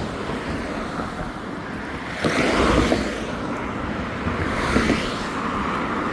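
Road traffic going by, a steady rush of tyres and engines, with one vehicle passing louder about two seconds in.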